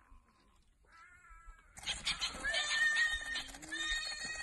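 Shrill animal screeching, a cat-like yowl with a high held note, starting a little under two seconds in and lasting almost three seconds.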